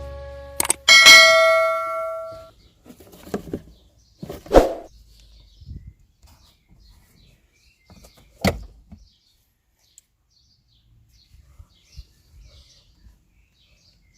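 A single bell-like ding about a second in that rings out and fades over a second or two, followed by a few scattered knocks and faint chirps.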